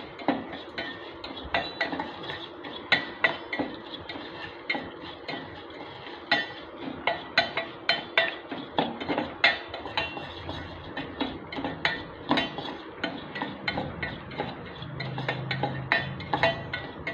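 Steel spoon scraping and clinking against a small stainless steel saucepan as sugar is stirred while it melts into caramel: irregular sharp clinks, several a second.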